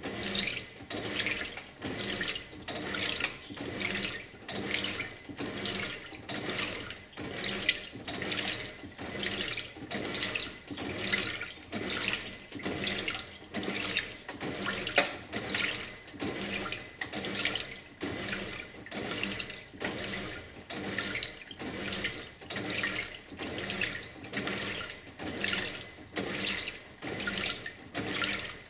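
2001 Simpson Esprit 550 top-load washing machine agitating a load of clothes, water sloshing in the tub in a steady, even rhythm stroke after stroke.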